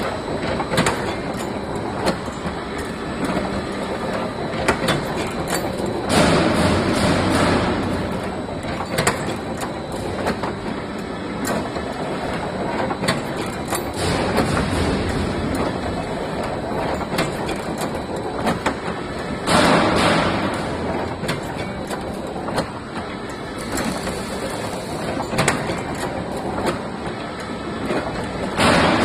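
CNC wire hanger forming machine running: steady mechanical clatter with frequent sharp clicks and knocks, and louder noisy surges lasting a second or two about six seconds in, around twenty seconds in, and near the end.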